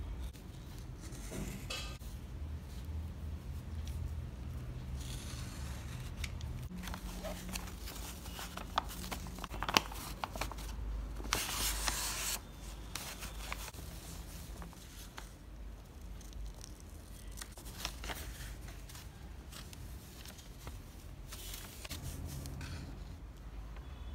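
Utility knife cutting through kraft paper, and the stiff paper rustling and scraping as it is handled and folded, in scattered bursts with a sharp click about ten seconds in, over a low steady hum.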